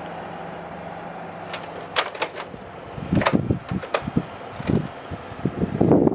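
Samsung mini-split air conditioner (TCL-built AR09KRFLAWKN) running with a steady hum, its airflow restricted by dirty evaporator coils. From about a second and a half in, a run of sharp clicks and knocks, with heavier thumps in the second half, comes in over the hum and is louder than it.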